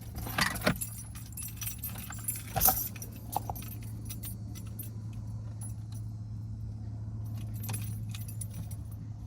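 A car's low steady hum at idle, with scattered light jingling clicks of keys and a louder knock about three seconds in.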